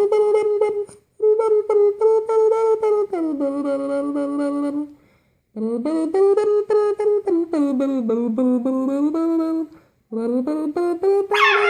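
A person humming a tune while buzzing the lips in a motorboat sound, in four phrases with short breaks, the pitch stepping down and back up. Right at the end a Shiba Inu breaks in with a rising howl.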